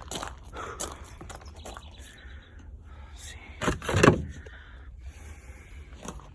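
Handling noises around a scrapped car: light clicks and rustling, then one heavy thump about four seconds in, as a car door or body panel is shut.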